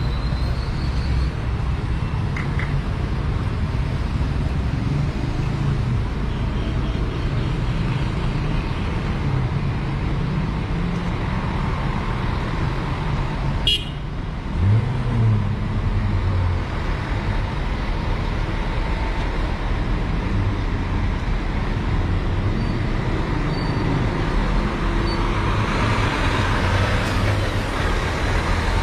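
Street traffic: vehicle engines running with a steady low rumble. There is one sharp click about halfway through, a short low engine swell just after it, and a louder wash of passing-vehicle noise near the end.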